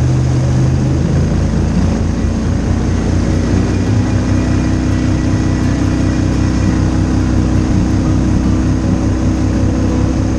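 Surface-drive mud motor of a Gator Tail shallow-water boat running steadily under way, its engine note shifting to a new steady pitch about a second in, over the rush of wind and water.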